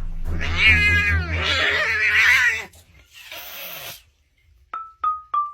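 A cat yowling in one long, wavering call, followed near the end by three short bell-like tones.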